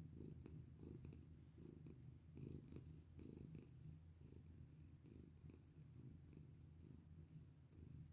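Domestic cat purring while being stroked, a quiet low rumble that swells and fades in an uneven rhythm.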